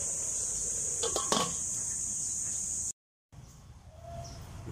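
A steady high-pitched hiss with a brief knock a little over a second in; the sound cuts off suddenly about three seconds in, leaving only faint background.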